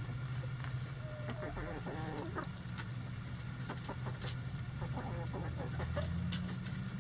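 Backyard hens clucking and calling in short wavering bursts, about a second in and again around four to five seconds, over a steady low hum.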